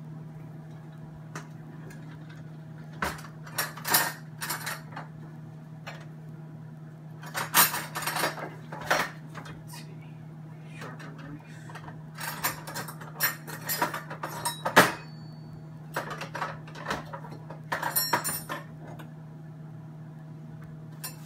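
Metal cutlery clinking and knocking in irregular bursts as knives are handled at a kitchen counter, with sharp metallic ringing clinks, over a steady low hum.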